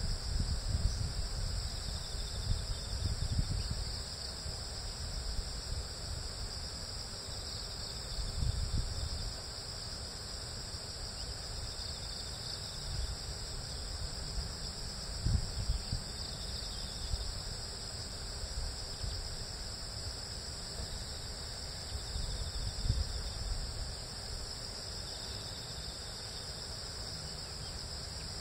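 Steady, unbroken chorus of insects chirring in a high band. Under it a low rumble swells a few times.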